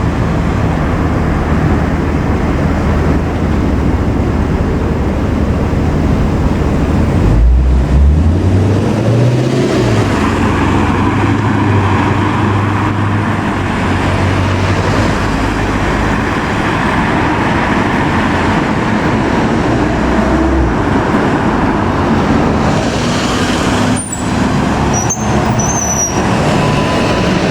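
Road traffic noise dominated by a heavy vehicle's engine, which revs up about seven seconds in as it pulls away.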